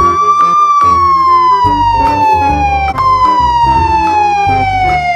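Police siren wailing: the tone rises, then falls slowly, jumps back up about three seconds in and falls again, over background music with a steady beat.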